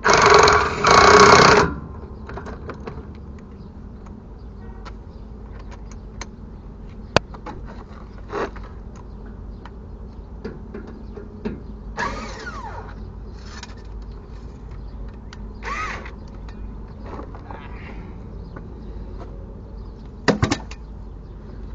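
Short bursts of a power tool, two of them in the first couple of seconds, about a second apart, followed by faint scattered clicks and knocks.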